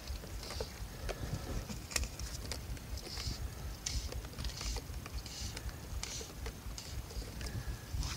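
Fly line being stripped in by hand, a short hiss of line sliding through the fingers and rod guides repeated about once a second, with small clicks, over low wind rumble on the microphone.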